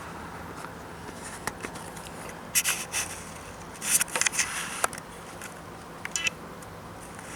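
A handful of short, scattered scrapes and rustles over a steady low background hum.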